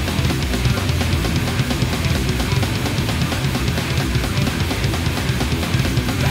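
Thrash metal recording: a fast, even drum-kit beat with kick drum and cymbals, under distorted electric guitars and bass.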